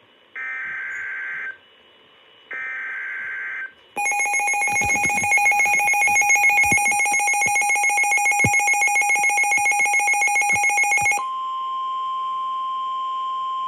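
NOAA Weather Radio tornado warning alert on Midland weather radios: two short screeching digital data bursts of the SAME header, then about four seconds in a loud, rapidly pulsing alarm for about seven seconds, giving way near the end to a steady single 1050 Hz warning alarm tone.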